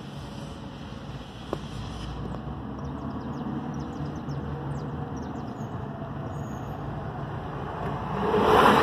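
Steady engine and road rumble heard from inside a moving vehicle, with a single click about a second and a half in. Near the end a louder rushing noise swells up.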